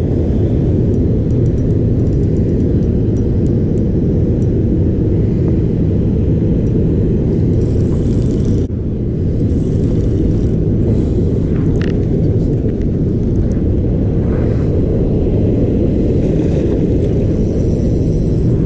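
Steady low rumble of wind buffeting the camera microphone, with a short dip about two-thirds of the way in. A few faint high ticks in the first few seconds.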